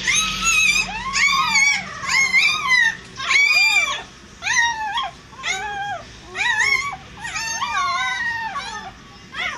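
Newborn Doberman puppies crying: a rapid string of high-pitched squeals that rise and fall, about two a second, some overlapping.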